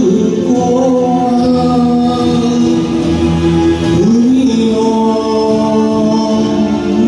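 A man singing to a karaoke backing track, holding long notes, with a glide up to a new note about four seconds in.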